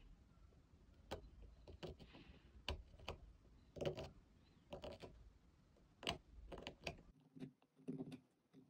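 Skew chisel paring an avocado seed: irregular small sharp clicks and short scrapes as chips come off, about two a second.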